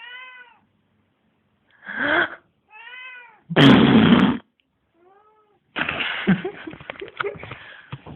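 A pet cat giving short rising-and-falling meows: one at the start, another about three seconds in, and a faint one about five seconds in. Each meow answers a person's loud breaths, which the cat habitually meows at. The loudest sound is a person's one-second burst of breath about three and a half seconds in, and near the end there is rustling and clicking.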